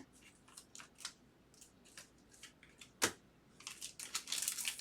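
Trading cards being handled: soft slides and small clicks, a sharper click about three seconds in, then a rustle building near the end.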